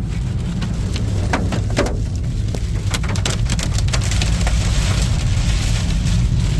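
Storm of a passing tornado: heavy rain and strong wind rumbling on the microphone, with many sharp, scattered hits of rain or flying debris, the hiss of the rain growing thicker about four seconds in.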